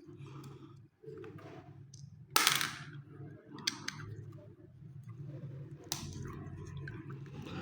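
Small 12 V water pump being taken apart by hand: clicks and scrapes of a tool and plastic casing, with one loud, sharp scrape about two and a half seconds in and a sharp click near six seconds, over a steady low hum.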